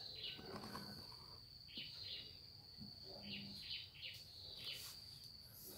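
Faint background of insects and birds: a steady high-pitched trill with clusters of short chirps every second or two.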